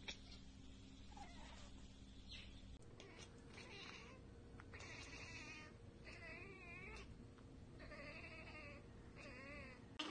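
A domestic cat chattering at prey it cannot reach, a rapid stuttering 'ekekek', in four or five short bursts starting about three seconds in.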